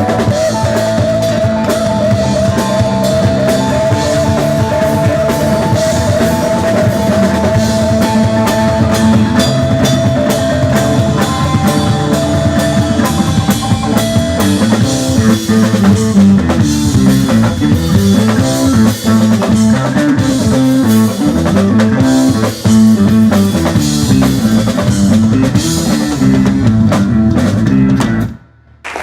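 Live rock band playing an instrumental passage with electric guitar, bass and drum kit. A held guitar note rings over the first ten seconds, then a busy bass line moves underneath. The band stops together abruptly just before the end.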